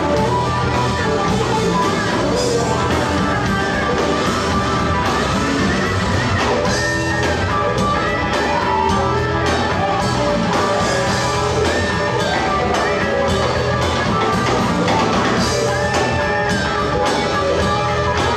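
Blues band playing live: an electric guitar lead with bent notes over bass guitar and drums.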